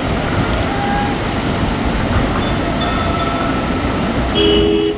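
Steady loud rushing of wind buffeting the microphone, with a short two-tone horn blast near the end.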